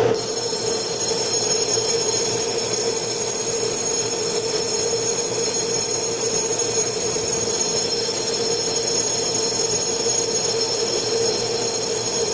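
Electric platform departure bell ringing continuously, a high steady ring that starts abruptly and cuts off about twelve seconds later, signalling that the doors of the waiting EMU500 commuter train are about to close. Under it, the stopped train's steady hum.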